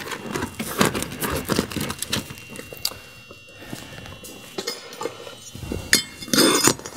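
Utility knife scoring and scraping through an asphalt shingle along a straight edge, with clinks and knocks as the tools are handled. There is a louder stretch of scraping about six seconds in.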